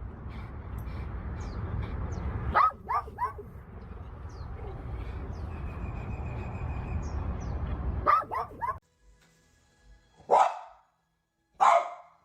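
A dog barking: a quick run of three barks about two and a half seconds in and another run of three about eight seconds in, over a steady low rumble. The rumble then cuts off suddenly, and two single barks follow against quiet near the end.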